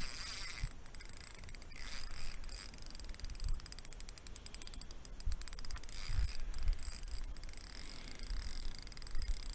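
A spinning reel (Shimano Soare C2000PGSS) being wound on a light rod, giving a fast, fine ticking, with a few soft handling knocks. A faint steady high whine sits underneath.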